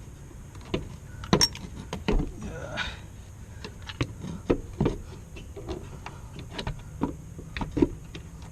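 Irregular light metallic clinks and knocks of bolts and hand tools being handled, a dozen or so scattered taps while driveshaft mounting bolts are being fitted.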